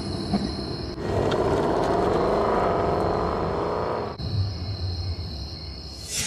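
Car engine running, revved up for about three seconds starting a second in, then dropping back to a low idle, with a sharp knock near the end.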